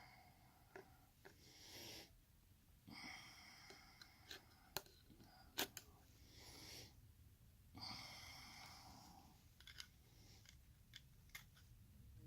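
Faint breathing close to the microphone, a breath every couple of seconds, with a few sharp small metallic clicks of tools working on the padlock, the loudest two about five seconds in.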